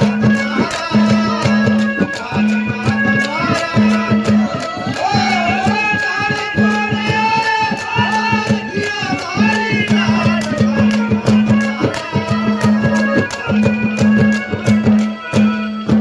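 Live devotional bhajan music: hand drums play a fast, steady rhythm under a melody line between sung verses.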